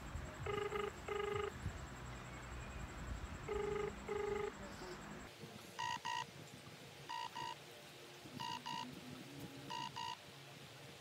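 Telephone ringback tone playing through a Samsung smartphone's speaker while a call rings out unanswered. First comes a low double ring about every three seconds; about five seconds in it switches abruptly to a higher, shorter double beep repeating about every second and a quarter.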